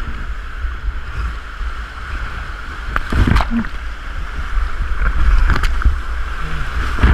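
Gauley River whitewater rushing around a raft, heard on a small action camera as a steady hiss of moving water over a low rumble. A few sudden sharp sounds come about three seconds in, around five and a half seconds, and again near the end.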